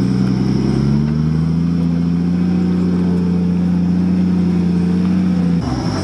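A 4x4 off-road vehicle's engine revving up over the first second or so, then held at steady high revs until it breaks off shortly before the end.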